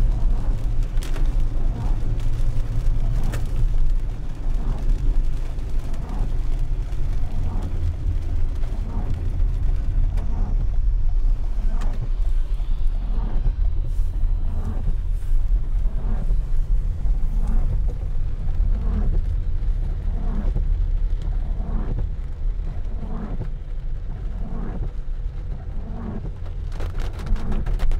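Car driving on a wet road, heard from inside the cabin: a steady low rumble of engine and tyres on wet tarmac. Through the second half a soft knock repeats a little faster than once a second.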